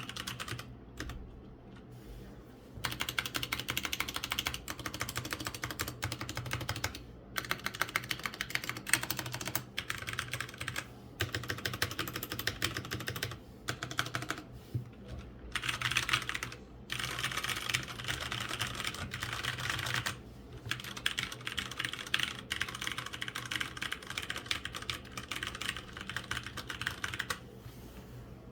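Typing on an Aula F2088 mechanical keyboard fitted with Cherry MX Ergo Clear tactile switches and Redragon keycaps. Quick runs of key clacks are broken by short pauses every few seconds.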